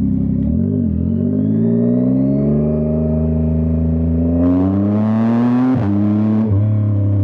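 Yamaha R9 sport bike's three-cylinder engine pulling hard under acceleration, its pitch climbing steadily for several seconds. It is then upshifted twice in quick succession near the end, the revs dropping sharply at each shift.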